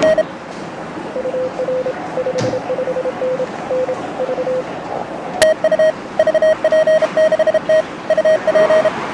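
Morse code (CW) tones from an amateur radio transceiver on the 15-metre band. A fainter, lower-pitched signal keys on and off for a few seconds. A sharp click comes a little past halfway, and then a louder, slightly higher-pitched signal sends fast keyed characters.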